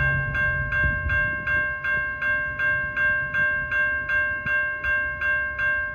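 Railroad grade-crossing bell ringing steadily at about three strikes a second, over the low rumble of a train.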